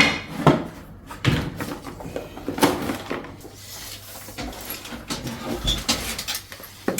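Irregular knocks and clunks of tools and materials being handled: about seven separate hits spread over several seconds, the loudest right at the start.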